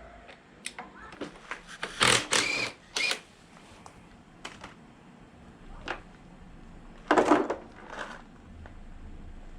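Hand tools working on a moped: scattered metal clicks with short bursts of rattling and scraping, the loudest about two seconds in and again about seven seconds in.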